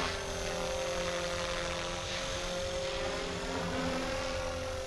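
Blade Fusion 360 Smart RC helicopter in flight: its brushless electric motor and spinning rotor blades make a steady whine that holds one pitch.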